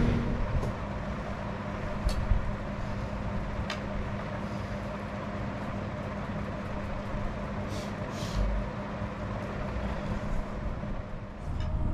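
Steady low hum of a room during a meal on the floor, with a few light clicks scattered through it and a brief hiss about eight seconds in.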